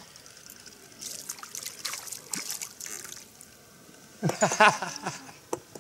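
A small hooked fish splashing and the water trickling and dripping as it is drawn up out of a calm lake on a float rod. About four seconds in comes a short, louder burst of voice.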